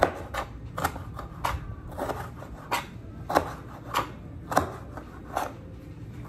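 Knife chopping vegetables on a cutting board, in short, irregular strokes about two or three a second.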